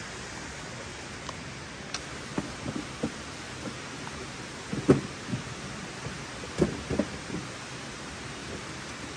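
Steady outdoor rushing noise, with a few soft knocks and thuds of things being handled at a camp table, the loudest about five seconds in.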